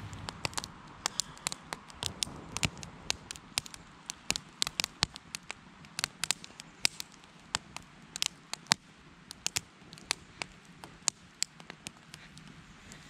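Freshly lit kindling fire in a stack of split wood crackling as it catches, with many sharp, irregular pops, several a second.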